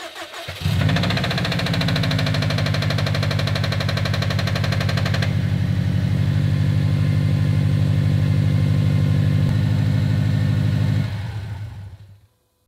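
Subaru WRX STI's turbocharged 2.5-litre flat-four cranks, catches about a second in and idles steadily with a knock, then is switched off near the end. The owner takes the knock for a worn rod bearing.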